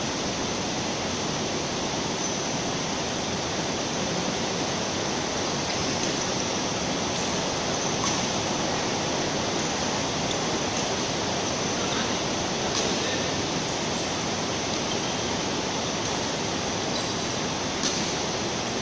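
A steady rushing noise that holds at one level throughout, with a few faint clicks now and then.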